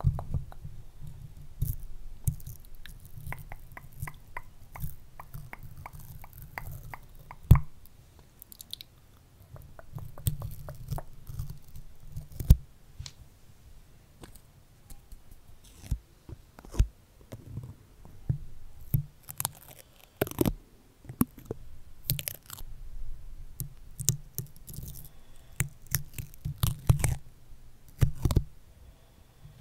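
Stickers being pressed onto and peeled off a microphone right at the capsule: irregular sticky crackles, clicks and taps over a low handling rumble.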